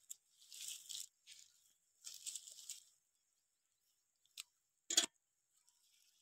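Faint rustling and crunching of a nylon cast net and dry straw as fish are picked out of the net by hand, with a louder sharp crack about five seconds in.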